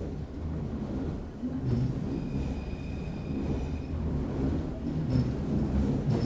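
Vintage Paris metro train running, heard from inside the carriage: a steady low rumble of steel wheels on the rails. From about two to four seconds in, a thin high metallic squeal holds one pitch. A couple of sharp clicks come through, one just before the squeal and one near the end.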